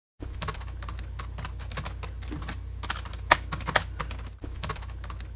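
Fast typing on a computer keyboard: a quick, uneven run of key clicks with a few louder strokes, over a low steady hum.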